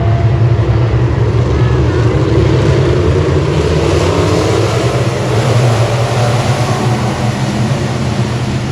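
Dirt-track race car engine running hard at speed: a loud, steady engine drone under a constant rush of wind and track noise.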